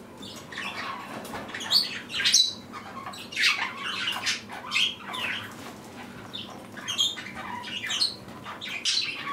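A flock of budgerigars chattering, with many short, irregular chirps and squawks overlapping.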